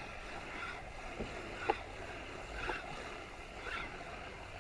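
Kayak paddle strokes in the sea, a splash about once a second, with water sloshing and dripping around the kayak's hull.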